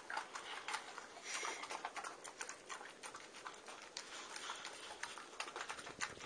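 Boxer dog eating soft food off a paper plate, licking and chewing in a quick, irregular run of wet smacks and clicks.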